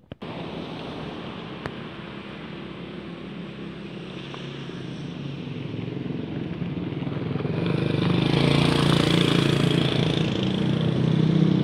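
A motor vehicle's engine running with road noise, growing steadily louder over several seconds and staying loud near the end.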